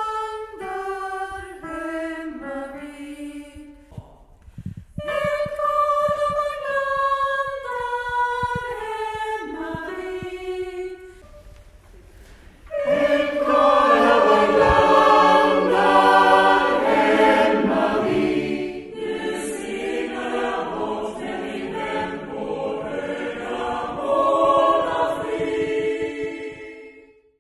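Chamber choir singing. First a single melody line stepping downward in phrases, then from about halfway the whole choir comes in louder in several parts, and the singing fades out near the end.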